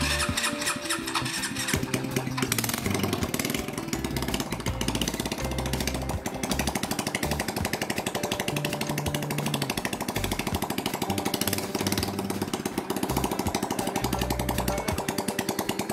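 Small 110cc single-cylinder motorcycle engine idling with a fast, even putter, freshly started, with background music over it.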